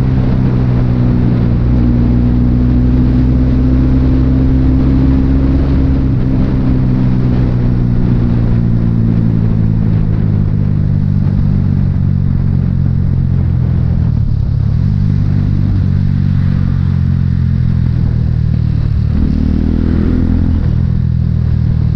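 Motorcycle engine running steadily at road speed, its pitch easing gradually lower, with a short dip and recovery past the middle. Near the end a large truck passes close by, adding a brief swell of heavier engine and road noise.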